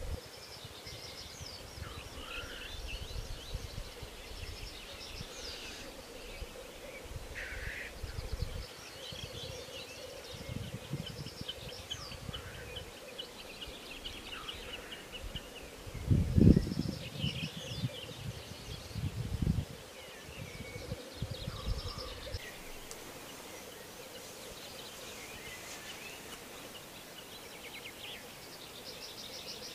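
Black grouse lek: a steady chorus of bubbling rookooing from displaying males, with scattered higher calls over it. Low rumbles come and go, the loudest about halfway through.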